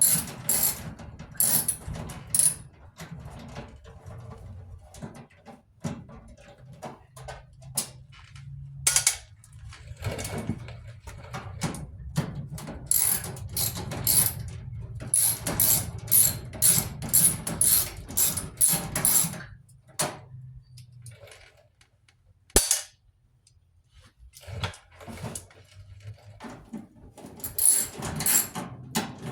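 Socket ratchet clicking in quick runs as screws are backed out of a clothes dryer's sheet-metal cabinet, with scattered metal clanks. A short quiet pause is broken by a single sharp knock.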